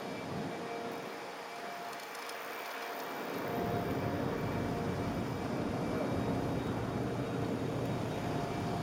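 Wind noise on the camera microphone while riding an Airwheel electric unicycle, growing louder and rumbling more about three and a half seconds in, with a faint steady whine from the unicycle's hub motor.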